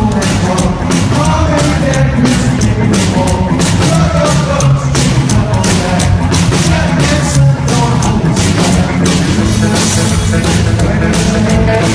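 A rockabilly band playing loud and live: electric guitar, upright double bass and a drum kit keeping a steady beat, with lead vocals.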